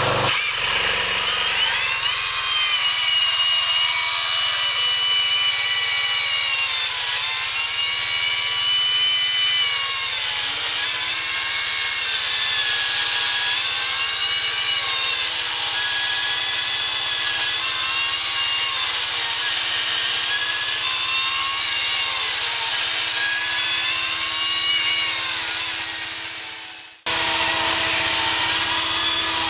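Power saw running continuously, its high whine dipping and recovering every few seconds as it is worked through the cut. Near the end the sound breaks off sharply and a steadier running sound follows.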